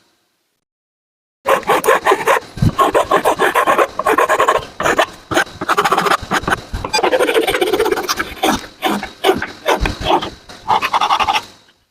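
Wood being worked by hand in quick, repeated back-and-forth rasping strokes. The strokes begin after about a second and a half of silence and go on with short breaks.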